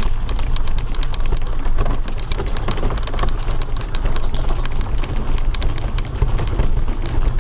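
Mobility scooter driving along a rough road surface: a steady low rumble from its motor and tyres, with many small crackles and clicks from grit and debris under the wheels.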